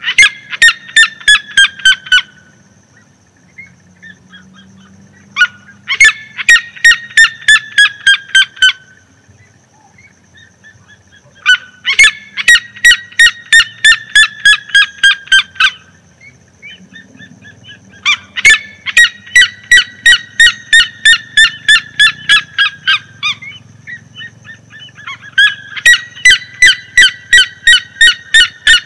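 Red-legged seriema calling: five bouts of loud, rapid yelps, about four or five a second, each bout running two to five seconds and sliding down in pitch, with short pauses between bouts.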